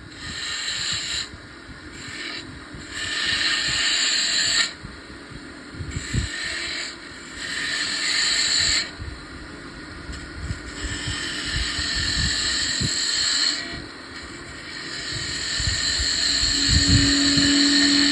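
A tool working wood spinning on a woodturning lathe, scraping in repeated passes of one to three seconds each with short pauses between.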